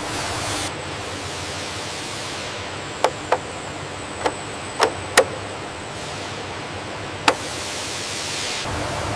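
Steady hiss of factory background noise with six short, sharp clicks or knocks, irregularly spaced from about three to seven seconds in.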